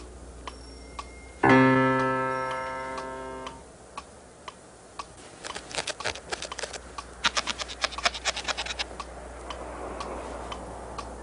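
A single piano chord is struck about a second and a half in and rings out for about two seconds. A few seconds later comes a run of quick, irregular clicks.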